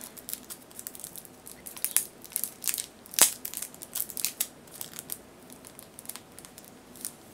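Crinkly plastic packaging being handled: an irregular run of sharp crackles and clicks, the loudest a little over three seconds in.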